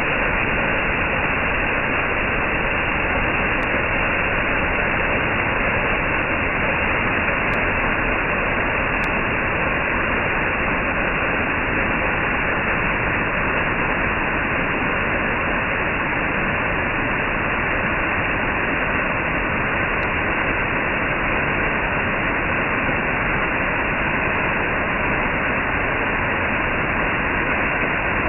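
Small forest waterfall pouring over rock and splashing into the pool at its foot: a steady, unbroken rush of falling water.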